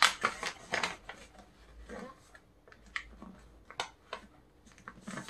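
Sheet of colored origami paper rustling and crinkling as small hands fold it and press the creases flat against a cloth-covered table. A cluster of crisp crackles comes in the first second, then scattered lighter clicks and rustles.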